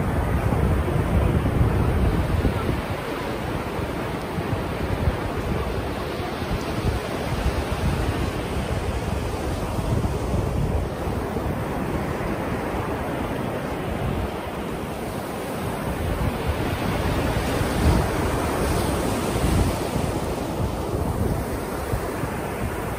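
Ocean surf breaking and its wash running up the sand, with wind rumbling on the microphone. The wash hisses louder near the end as it reaches the microphone.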